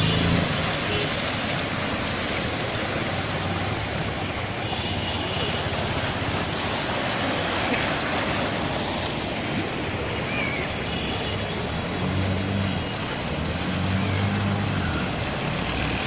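Floodwater rushing, a steady loud noise, with a faint low hum swelling twice near the end.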